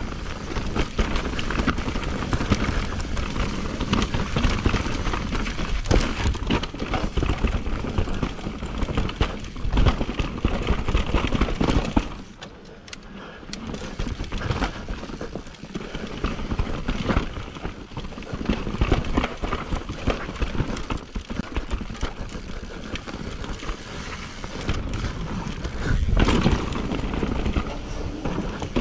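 Mountain bike ridden fast down a dirt and rocky singletrack: continuous rumble of knobby tyres on dirt, with the bike's chain and frame clattering over bumps. It briefly goes quieter about twelve seconds in, then picks up again.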